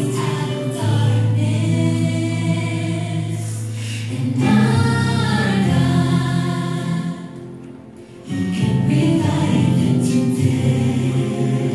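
Gospel choir song with instrumental backing playing for a praise dance, sung voices over sustained low bass notes. The music drops away briefly about two-thirds through, then comes back in at full level.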